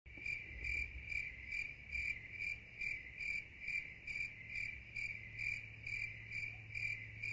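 An insect chirping in an even rhythm, a little over two chirps a second, with a faint low hum underneath.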